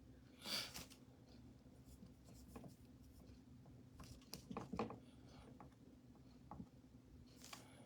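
Faint scraping and rubbing strokes of a craft tool worked over a chalkboard surface, a few short strokes with light taps between them, over quiet room tone.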